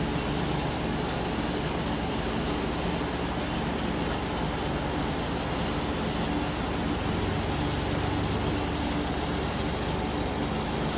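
Steady mechanical drone with a low hum as a vehicle lift slowly lowers a car.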